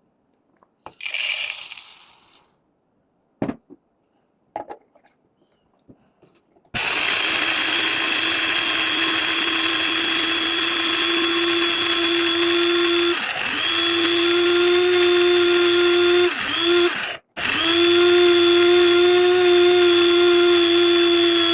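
500-watt electric spice grinder's motor running, grinding black peppercorns: a steady whine that sags briefly in pitch twice, cuts out for an instant and starts again. Before the motor starts there is a short rattle and a few clicks.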